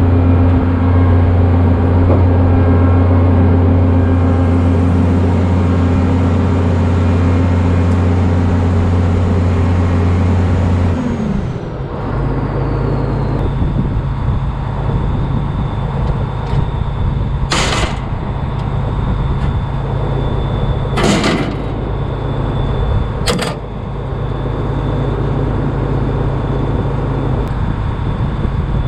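Case IH 1660 combine running steadily with a loud low hum. A little over eleven seconds in, the engine note drops and a high whine glides down, then holds. Three sharp clacks come later.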